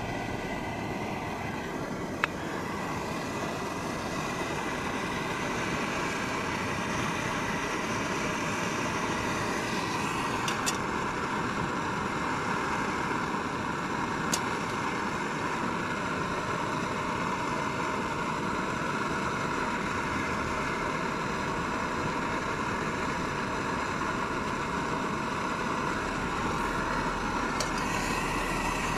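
Steady rushing noise with a few brief sharp clicks.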